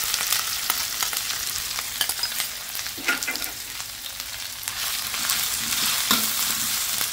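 Pounded ginger, garlic and shallots with lemongrass sizzling in hot oil in a stainless steel wok, with light clicks of metal on the pan; near the end a metal spatula scrapes and stirs the paste.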